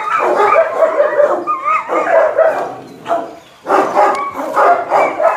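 Kennelled dogs barking and yelping together, with whining calls that glide up and down in pitch; the noise drops off briefly about three seconds in, then starts up again.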